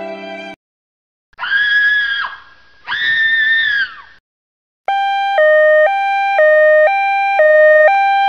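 A string of sound effects: the tail of a violin tune, then two held high-pitched wails about a second each that bend up at the start and down at the end. Then an electronic hi-lo alarm tone switches between a higher and a lower pitch about twice a second.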